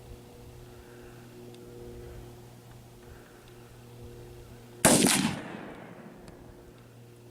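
A single AR-15 rifle shot about five seconds in, followed by a short echo that dies away within a second.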